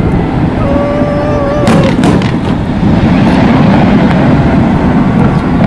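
Fireworks: a steady whistle for about a second, then a quick cluster of sharp cracks, over a loud low rumble.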